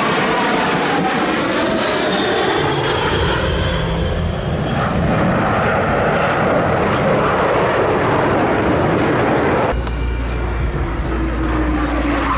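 Blue Angels F/A-18 Hornet fighter jets flying past with a loud, steady jet roar, its pitch falling as the jets go by. A deeper rumble comes in suddenly near the end.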